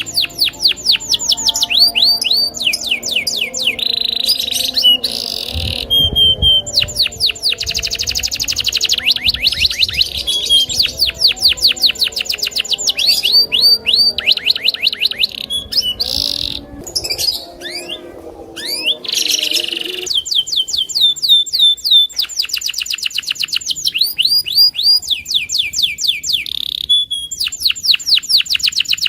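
Domestic canary singing hard: a long song of fast trills and rapidly repeated sweeping notes, broken by short pauses.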